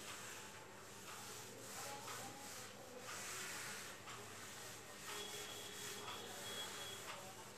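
Board eraser rubbing across a whiteboard in faint, repeated wiping strokes.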